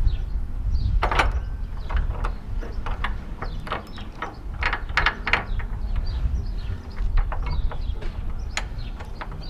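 Irregular light metal clicks and clinks as nuts are handled and threaded by hand onto carriage bolts through a metal D-ring backing plate, over a steady low rumble.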